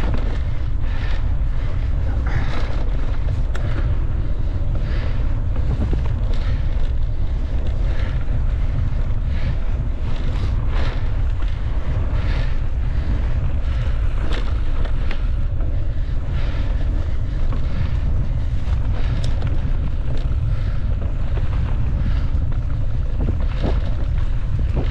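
Wind buffeting the microphone, a steady low rumble, with frequent short rattles and knocks from a mountain bike riding over the trail.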